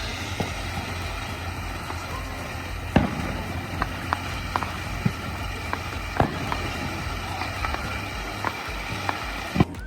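Consumer fireworks going off: scattered sharp pops and cracks at irregular intervals over a steady hiss.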